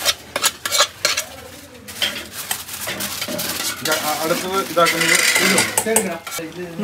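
Metal utensil clinking and scraping against a cooking pan while food is stirred, with several sharp clinks in the first second and a half, over the sizzle of frying.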